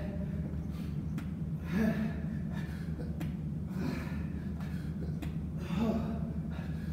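A man breathing hard from exertion, with a loud, gasping breath about every two seconds, three in all, over a steady low hum.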